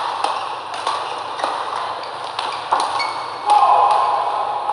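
Badminton rackets striking the shuttlecock in a quick rally: a string of sharp pings, roughly one every half second. A voice rises over them near the end.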